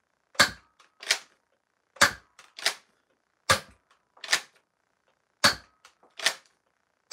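Adventure Force Blitz 6 foam-dart revolver firing shot after shot: sharp snaps coming in pairs about three quarters of a second apart, four pairs and one more snap at the end, with a few faint clicks between.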